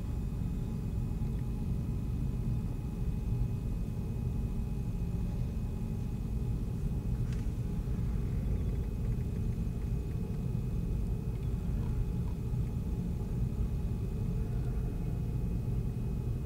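Steady low rumble of a large cruise ship under way, with a faint steady high tone and one brief click about seven seconds in.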